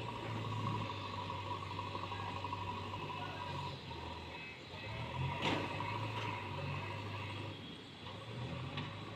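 A JCB machine's engine running, with a steady high whine over a low drone that shifts in pitch now and then, and a brief sharp noise about five and a half seconds in.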